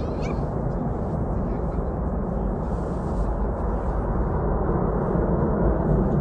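Distant, steady rush of the Antonov An-225's six turbofan engines across the airfield, growing slightly louder toward the end.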